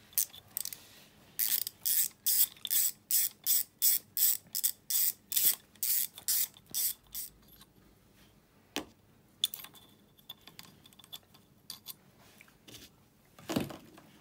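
Hand ratchet wrench clicking in quick back-and-forth strokes, about two to three a second for several seconds, as a bolt on the ATV engine's cylinder is undone. Then a few scattered clicks, a single knock, and a louder thump near the end.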